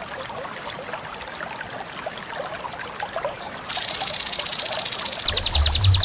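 Songbird-training (masteran) recording of bird calls over a background chorus of insects and frogs; about four seconds in, a loud, high, rapid trill starts and turns into a fast even pulsing near the end.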